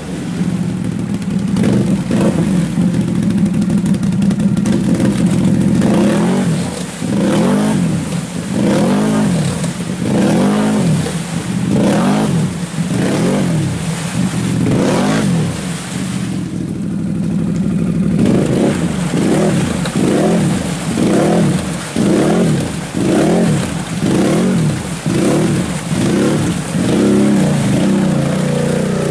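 ATV engine running on a trail ride, steady at first and then revving up and down over and over, about once a second, with a short easing-off about halfway through.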